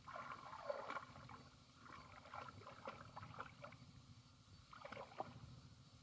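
Faint sloshing and splashing of shallow muddy water as hands stir about inside bamboo polo fish traps, feeling for fish. It comes in uneven spells at the start, in the middle and again about five seconds in.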